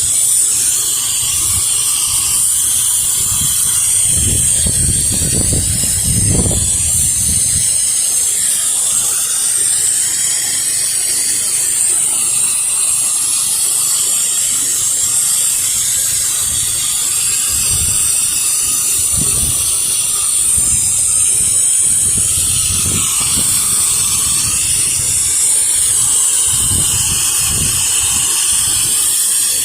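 Pressure washer spraying water: a steady, loud hiss of the jet from the wand, with occasional low rumbles.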